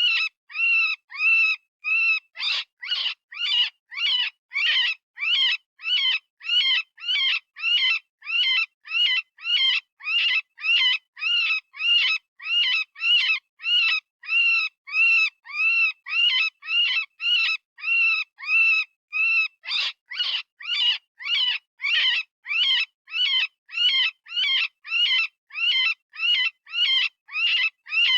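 Software-generated rabbit distress call, the kind used as a predator-hunting call. It is a steady string of short, high-pitched arching cries, about two a second, with a slight change in their shape a couple of seconds in and again near the end.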